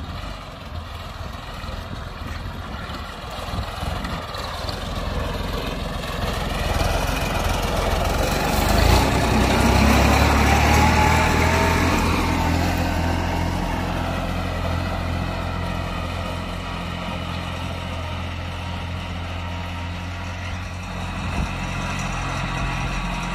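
Kubota B2420 compact tractor's three-cylinder diesel engine running under load as it pulls a ridger through the soil. It grows louder as the tractor comes close, is loudest about ten seconds in, then runs steadily.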